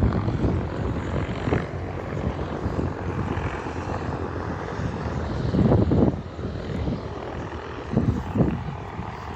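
Helicopter engine and rotor running steadily, with two brief louder low surges, one about halfway through and one near the end.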